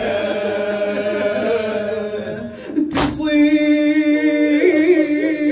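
Male reciter chanting a Shia latmiya elegy without instruments, holding long wavering notes, with a single sharp knock about three seconds in.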